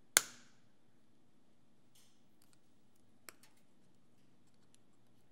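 Side cutters snipping through a molded plastic part of an electric toothbrush: one loud, sharp snap with a short ringing tail, then a quieter click about three seconds later and a few faint ticks.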